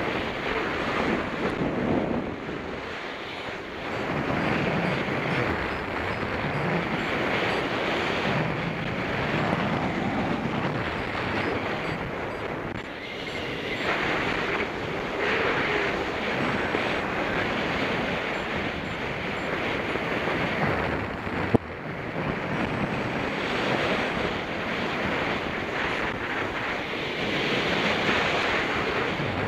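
Strong wind rushing over the microphone, swelling and easing in gusts, with a single sharp click about two-thirds of the way through.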